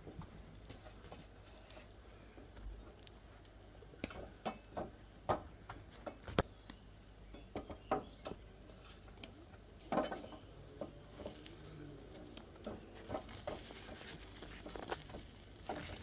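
Scattered light knocks, taps and rustles of food being handled on a wooden cutting board, as bread halves are set down and sliced onion and herbs are sprinkled over them. The sharpest knock comes about six seconds in.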